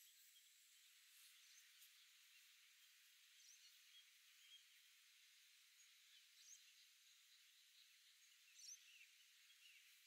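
Near silence: faint outdoor hiss with a few faint, high bird chirps, the loudest near the end.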